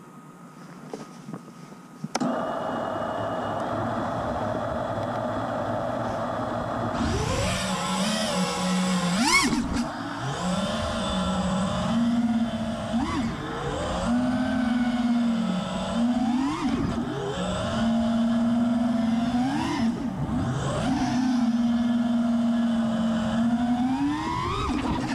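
Four brushless motors of a 5-inch FPV freestyle quadcopter (Apex Racing Hornet 2306.6 2555KV motors with HQ Ethix P3 props), heard from its onboard camera. About two seconds in, the motors start suddenly and hold a steady idle hum with idle-up on. Around seven seconds in they go to full throttle for takeoff, and the pitch then climbs in quick whines and drops back again and again as the throttle is punched through the flight.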